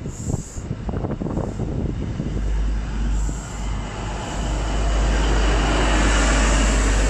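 A diesel High Speed Train (InterCity 125) pulling away: the coaches' wheels click over rail joints, then the rumble and high whine of the rear Class 43 power car's engine grow louder from about five seconds in as it approaches.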